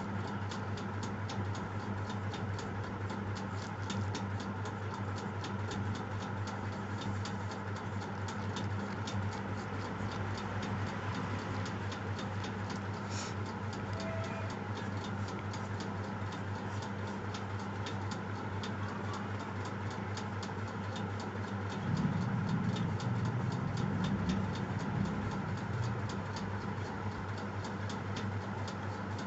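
Steady, even ticking over a low steady hum, with a louder low rumble for a few seconds about three quarters of the way through.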